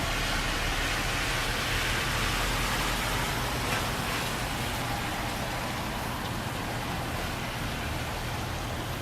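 Heavy rain falling steadily, with a car's tyres hissing on the wet road as it passes, swelling over the first few seconds and then fading away.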